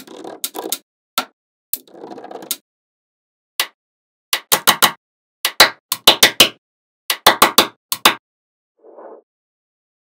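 Small magnetic balls clicking as they snap onto each other, in quick runs of three or four sharp clicks, with short stretches of soft rattling as loose balls are handled.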